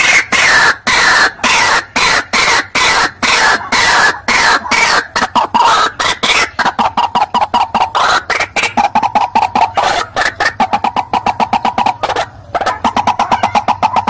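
White-breasted waterhen (ruak-ruak) call played as a hunting lure: a loud, rhythmic run of harsh repeated croaking notes that speeds up, with a brief break about twelve seconds in.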